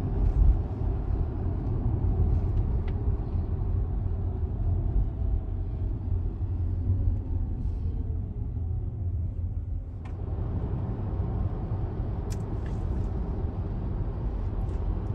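Steady low road and engine rumble of a car driving, heard from inside the cabin. The higher hiss drops away for a couple of seconds and comes back about ten seconds in.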